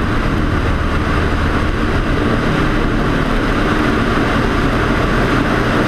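Single-engine Cessna's piston engine and propeller running steadily in cruise flight, heard from the tail through heavy wind rush on the microphone.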